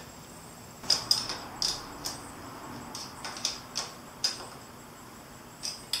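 Light metallic clicks and taps, about ten scattered irregularly, from small hardware and parts being handled while a turn signal is fitted through its mounting bracket on the motorcycle's fork.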